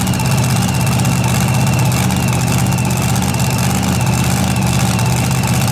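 Super modified four-wheel-drive pulling truck's engine idling loudly and steadily, with a thin steady high whine above the engine note.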